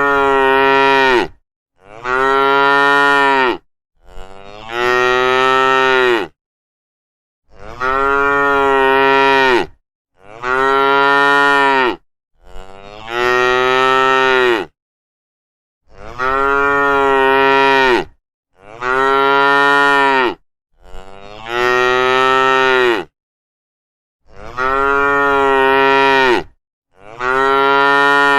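Cows mooing: about a dozen long, drawn-out moos of roughly two seconds each, one after another with short silent gaps, each call nearly the same as the last.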